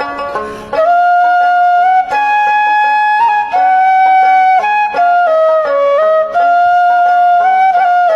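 Background music: a flute playing a slow melody of long held notes, with brief breaks between phrases.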